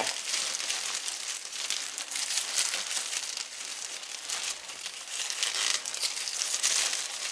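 Plastic oven cooking bag crinkling and rustling as its gathered top is twisted and knotted by hand: a steady run of small irregular crackles.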